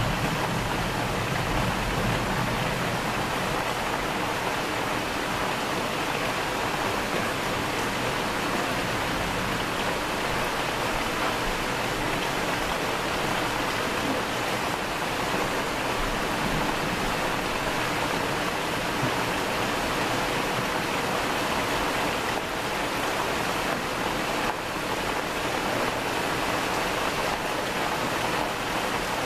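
Thunderstorm rain falling steadily, a dense even hiss. The tail of a low thunder rumble dies away in the first second.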